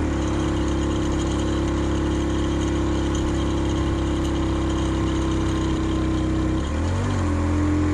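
70cc motorcycle engine running at steady revs, pulling a heavy load uphill. Its pitch dips and climbs back briefly near the end.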